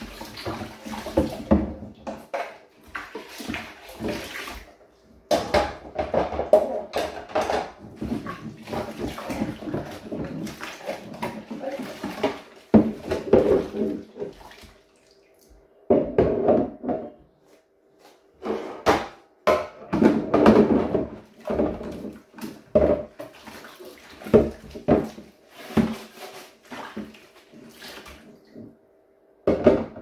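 Clear plastic fridge containers being washed by hand in a sink of soapy water: irregular splashing and sloshing, with occasional sharp knocks, and a quieter spell about halfway through.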